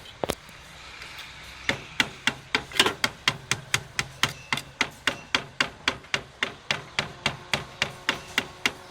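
Rhythmic sharp knocks from oil paint being mixed by hand, a tool striking its container at a steady three to four knocks a second, starting a little under two seconds in after a quick double knock.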